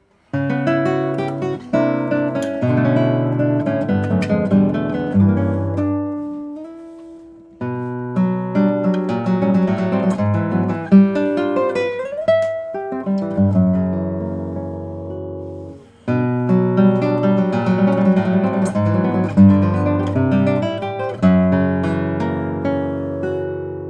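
LaMancha Rubinito classical guitar with nylon Savarez strings played solo: plucked notes and chords in three phrases, each starting strong and dying away, with a sliding note about halfway through.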